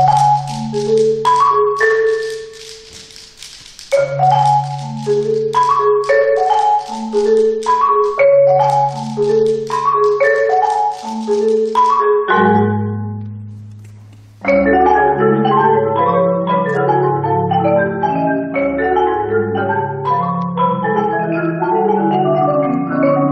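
Percussion ensemble playing marimba and other mallet percussion over low held notes. Repeated phrases of struck notes with bright, noisy attacks ring away past the middle, then a fast, busy pattern of mallet notes takes over.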